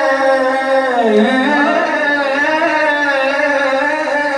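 A man singing a naat, drawing out one long line without words: the pitch slides down about a second in, then rises and wavers.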